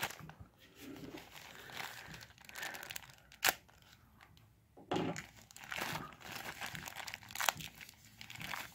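Clear plastic accessory bags crinkling and rustling in the hands as they are handled and opened. There are two sharp clicks, one about three seconds in and one near the end.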